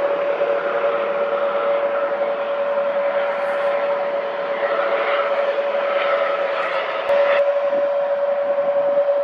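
Jet airliner's engines running with a steady whine over a broad rush of noise, with a slight jump in level about seven seconds in.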